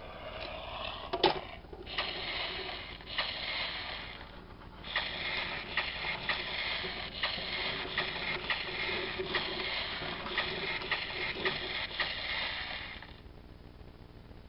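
Plastic wheels and ratcheting wheel mechanism of a VTech Switch & Go Dinos toy rattling and clicking as the toy is spun and rolled by hand along a table. It pauses briefly twice and stops about a second and a half before the end.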